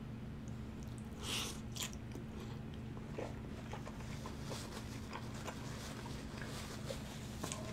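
Close-miked chewing and wet mouth sounds from eating a lettuce-wrapped burger, with two brief smacks about a second and a half in, over a steady low hum.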